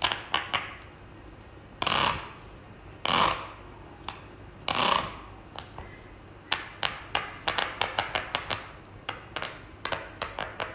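Fidget toys handled by hand: a few sharp clicks, three longer rustling bursts, then a quick run of small clicks and taps, about three or four a second.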